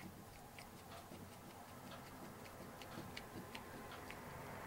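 Phillips screwdriver tip twisting by hand in a small hole in a camcorder's mic cover plate, reaming the hole wider: faint, irregular little clicks and scrapes, several a second.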